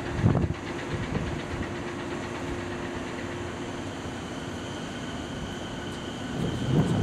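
JR 209 series electric commuter train rolling slowly into the platform. There is a knock just after the start and a steady hum, then a high whine comes in about halfway, and a rumble grows louder near the end as the train draws close.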